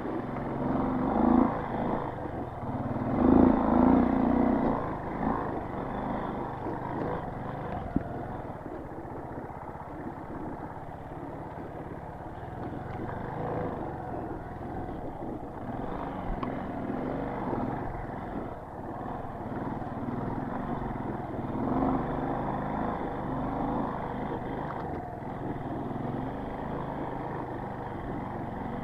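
Motorcycle engine running slowly in first gear, revving up in repeated surges, louder in the first few seconds and again about two-thirds of the way in. There is a single sharp knock about eight seconds in.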